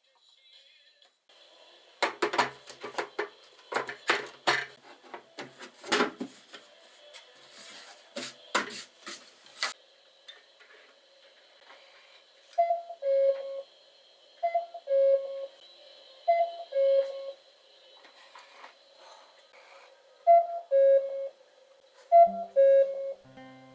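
A run of sharp clicks and knocks for several seconds, then a cuckoo clock calling: a two-note falling "cuck-oo" whistle, repeated five times about every two seconds with one longer pause in the middle.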